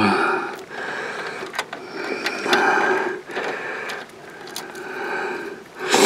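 Heavy, congested breathing close to the microphone from a man with a head cold, in about five slow breaths, with a few faint clicks of small connector plugs being handled. A louder breath comes at the very end.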